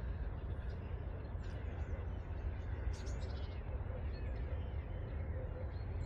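Small birds chirping now and then, with a quick run of chirps about three seconds in, over a steady low rumble.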